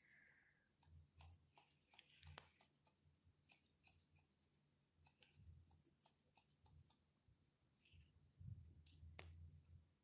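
Grooming scissors snipping a toy poodle's face hair: a faint rapid run of crisp metal snips, several a second, that stops about seven seconds in, followed by two single snips near the end.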